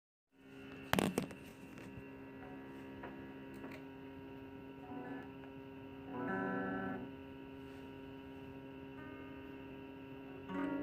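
Steady electrical hum with a knock about a second in, then a few sparse plucked string notes, louder ones coming in near the end.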